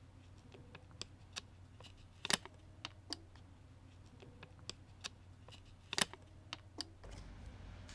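Scattered light clicks and ticks of thin plastic prying picks being slid and worked into the glued seam between a Samsung Galaxy A600FN's screen and housing, with two sharper clicks about two and six seconds in.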